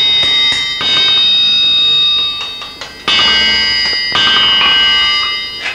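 Blacksmith's hammer striking hot iron on an anvil, a handful of blows, each leaving the anvil ringing like a bell for a second or more. The smith is hammering the collared pieces of a wrought-iron gate together hot rather than welding them.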